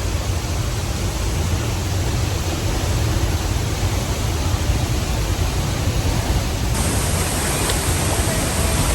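Loud, steady rush of falling water from La Fortuna waterfall, the Arenal River dropping about 70 metres into its pool; the sound shifts slightly about two-thirds of the way in.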